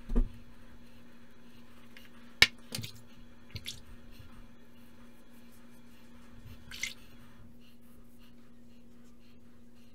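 Shaving-kit handling over a steady low hum: a thump, then a sharp click and several smaller clicks and knocks as the lathering brush is put down and the razor taken up. Near the end comes the faint scratch of a Defitch DF-91 double-edge safety razor drawn over lathered neck stubble.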